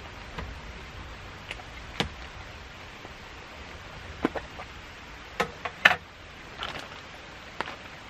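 A plastic food tub of starch powder being handled and its snap-on lid worked off, giving a string of sharp plastic clicks and taps, loudest about six seconds in, over a steady hiss.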